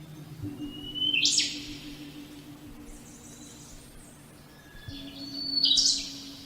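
Two sharp rising bird-like chirps, about a second in and near the end, over a soft sustained low synth pad as the song fades out.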